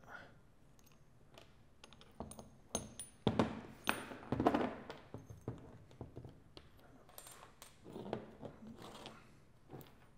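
Steel gears, washers and a shaft from a 4-speed Harley-Davidson Sportster transmission being picked up and set down on a workbench: irregular metallic clinks and clatter, some with a short high ring, loudest about three to five seconds in and again near the end.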